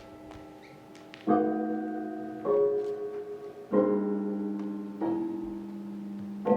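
Piano playing slow, ringing chords in a contemporary concert piece: a fading chord, then four chords struck about a second apart, each held ringing into the next.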